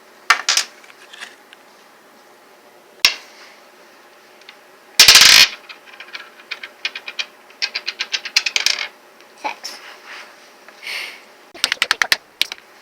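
Small plastic board-game pieces being handled: scattered clicks and rattles, with runs of quick clicking and one loud, short scuffing knock about five seconds in.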